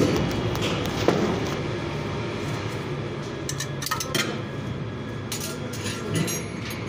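Scattered light metallic clinks and taps as a spin-on oil filter is hand-tightened under a car, over a steady low hum.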